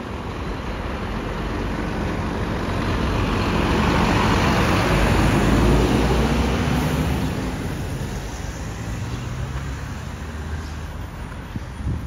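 Scania P360 rear-loader garbage truck driving past close by, its diesel engine and tyres growing louder to a peak about halfway through, then fading as it moves away.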